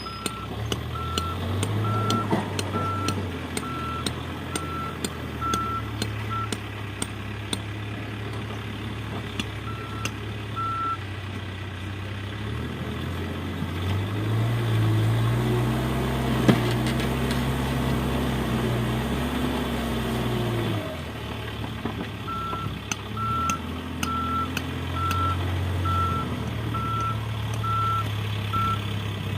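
A heavy construction machine's reversing alarm beeps about twice a second over its running diesel engine. The beeping stops for a while, and in the middle the engine revs up for several seconds, then settles. Sharp metallic clicks are scattered through it.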